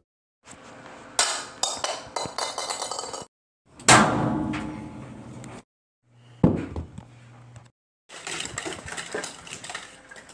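Several short bursts of clattering and clanking, cut off abruptly between clips. The loudest is one hard metallic impact about four seconds in that rings away, with a second sharp hit a couple of seconds later.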